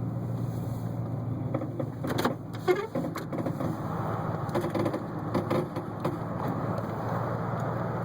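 2008 GMC Sierra 1500 4WD running with a steady low drone, broken by a few irregular pops and clicks from the front end, which the owner takes for a bad wheel bearing.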